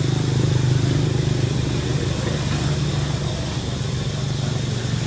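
An engine running steadily: a loud, even low hum.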